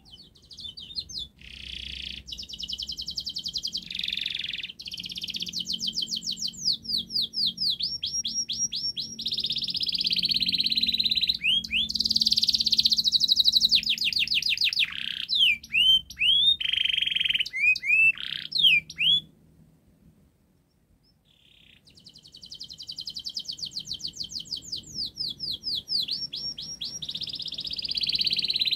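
Domestic canary singing a long, continuous song of rapid trills and swooping notes. It breaks off for about two seconds about two-thirds of the way through, then starts up again with a fast trill.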